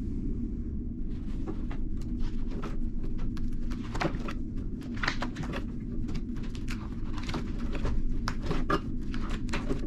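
Pages of a spiral-bound binder in clear plastic sleeves being flipped by hand: a run of crinkles and clicks from about a second in. Under it runs the steady low rumble of the ferry underway.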